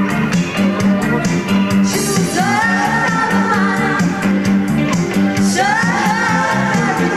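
Live band playing with a singer: keyboards and drums under a steady bass line, with sung phrases starting about two and a half and five and a half seconds in.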